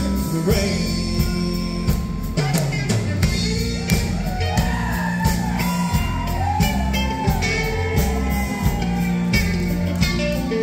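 Live country band playing an instrumental break of a slow country ballad, with an electric guitar lead bending notes over a steady drum beat, bass and strummed acoustic guitars.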